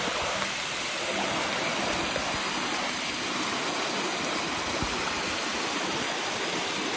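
Steady, even rush of water, a dense hiss that stays level and unbroken.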